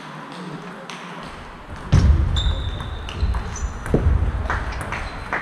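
Table tennis rally: the celluloid-type ball clicks off rubber-faced paddles and the table. There are heavy low thuds about two and four seconds in.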